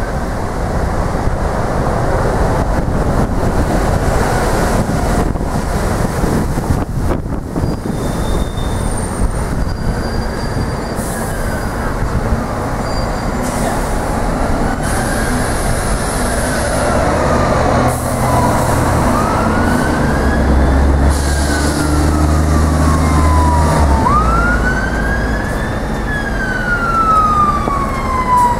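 City street traffic with buses running, and from about a third of the way in an emergency vehicle siren wailing, slowly rising and falling in pitch and growing louder toward the end, where its sweeps become quicker. A bus engine's low rumble is strongest about three quarters of the way through.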